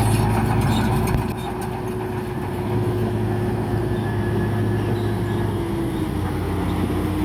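Diesel engine of heavy earthmoving equipment running steadily, with a whine that drops a little in pitch near the end.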